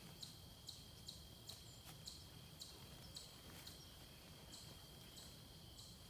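Faint outdoor ambience of insects chirping, short high chirps repeating about twice a second over a steady high-pitched trill.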